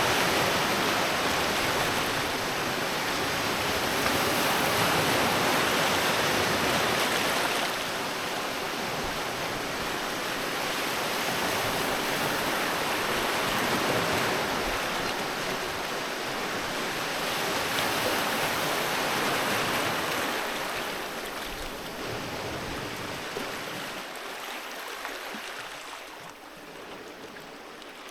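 Sea waves washing onto a beach: a long surge of surf at the start, smaller surges after it, and the wash dying down near the end.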